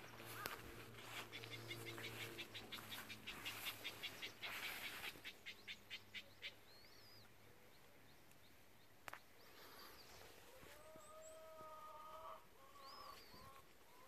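Faint rural ambience with small birds chirping now and then. For the first five seconds or so a quick rhythmic rasp repeats about five times a second. Later comes a steady pitched call lasting about two seconds.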